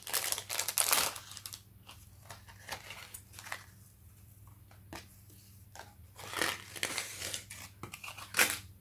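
Thin clear plastic packaging crinkling and rustling as a jewellery packet is snipped open with scissors and a pendant on a cord is pulled off its card, with scattered small clicks and handling noise. The rustling comes in irregular bursts, busiest at the start and again near the end.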